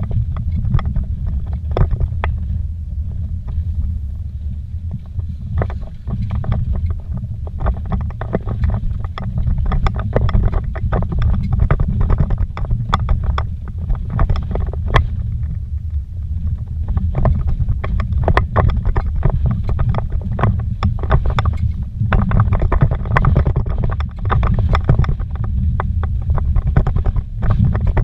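Inside a vehicle driven fast on a rough dirt road: steady low rumble from the engine and tyres, with constant rattling clicks and knocks from bumps and gravel.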